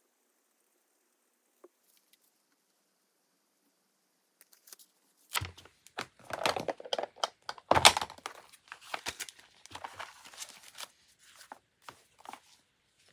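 Paper being torn and crinkled by hand in a string of short rips and rustles that starts about five seconds in and is loudest around eight seconds.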